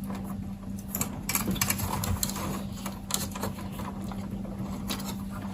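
Light clicks and small rattles of wires and connectors being handled, thickest in the first half, over a steady low hum.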